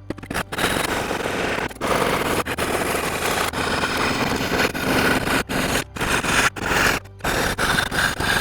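Jeweller's saw cutting through 14 gauge brass sheet: fast, rasping back-and-forth strokes with a few brief pauses.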